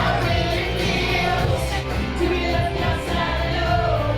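Pop music with a sung melody over a steady bass line.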